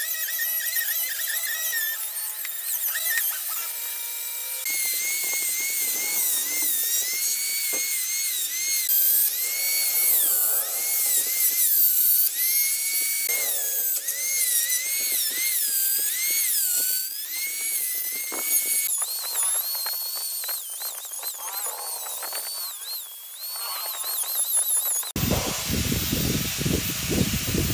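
High-speed electric rotary carving tool (micromotor handpiece) burring wood: a thin high whine whose pitch keeps dipping and recovering as the bit bites into the wood. Near the end it abruptly gives way to a rougher, fuller grinding noise.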